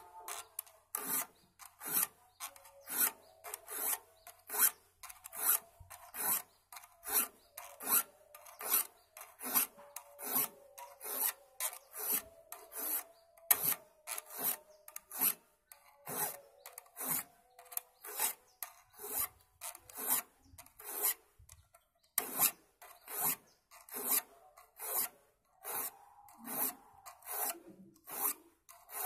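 Hand file rasping across the teeth of a handsaw blade in quick, even strokes, about two a second, sharpening the teeth. A faint ringing tone sits under the strokes, and there is a short pause about three quarters of the way through.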